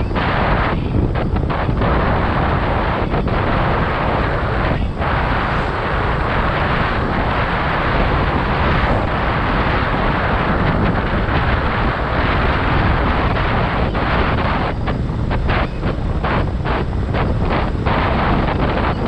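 Loud, steady wind rush on the microphone of a camera riding on a moving motorcycle, mixed with the motorcycle's engine and tyre noise. The rush dips briefly several times near the end.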